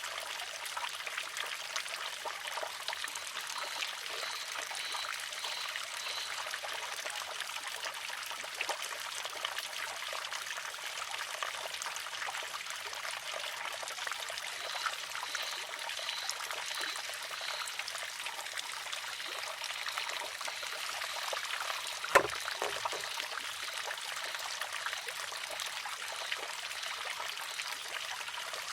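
Water trickling steadily through a wooden shishi-odoshi, with one sharp wooden clack a little over twenty seconds in as the filled arm tips over and strikes its rock.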